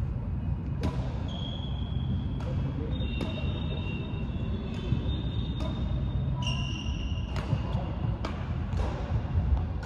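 Badminton rackets striking a shuttlecock in a rally, with sharp hits about a second apart. A few high squeaks come between the hits over a steady low rumble.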